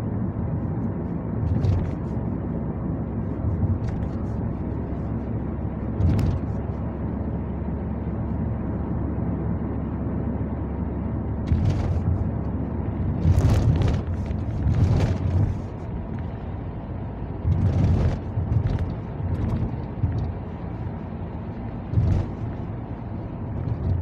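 Steady engine and road rumble inside a moving car's cabin, with several brief knocks and thumps at irregular moments.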